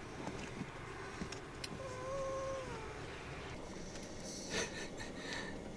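A Pomeranian whining once: a thin, steady whine about a second long that dips in pitch at the end, begging to be fed. A few faint rustles follow.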